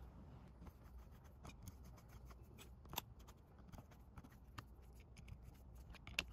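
Faint small metallic clicks of screws being started into a Yamaha four-stroke outboard carburetor's top cover, by fingers and a flathead screwdriver, with a slightly louder click about three seconds in and a few more near the end.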